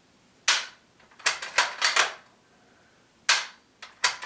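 Weatherby Mark V bolt-action rifle being cycled by hand and dry-fired on an empty chamber as a function check: sharp metallic clicks and clacks of the bolt and firing pin, in groups. There is a single click about half a second in, a quick cluster of several around one and a half to two seconds, and more near the end.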